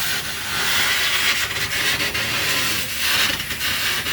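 Continuous mining machine working the coal face: a loud, steady hiss with a rough, uneven scraping texture running through it.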